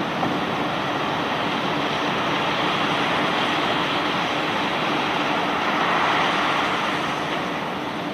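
Conveyor belt carrying rock, running with a steady noisy rush and a faint steady hum underneath.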